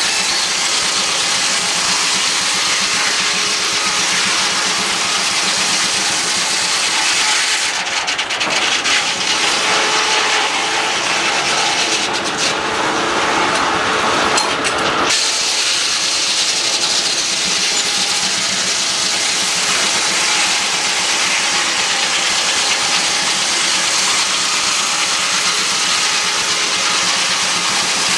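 Antique circular sawmill running, with the engine that drives it going steadily throughout. For several seconds in the middle the sound turns harsher as the large circular blade cuts through a log on the carriage.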